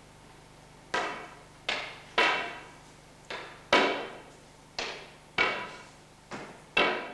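Knocking against a wall: an irregular series of about nine sharp knocks, some louder than others, each with a brief pitched ring that dies away.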